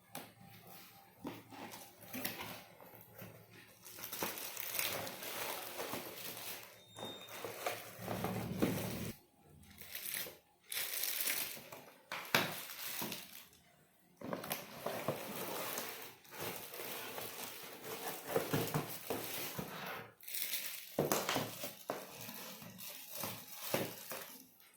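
Packaging being handled and opened: crinkling and rustling of cardboard and wrapping, stop-start with a few short pauses.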